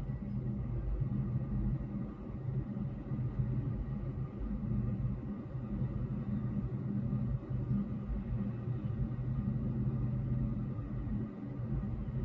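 Low, steady rumble of city road traffic heard through a closed window, the higher sounds muffled.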